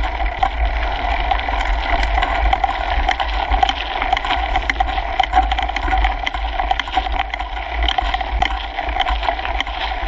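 Kona Coiler mountain bike rolling along a gravel trail, heard through a handlebar-mounted GoPro: steady tyre noise on the gravel over a low rumble, with many small rattles and clicks from the bike and mount.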